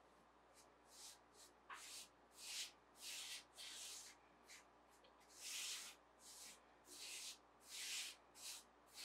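Hands rubbing all-purpose flour into the dampened surface of a proofed sourdough loaf: a faint run of soft brushing strokes, about two a second.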